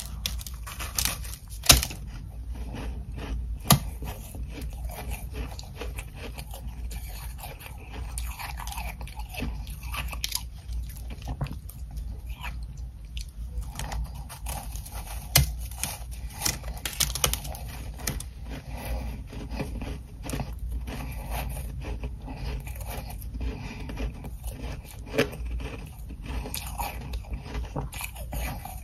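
Close-up crunching and chewing of ice chunks coated in powdery humidifier frost, with sharp cracks from bites at irregular intervals and a dense run of crunching in between.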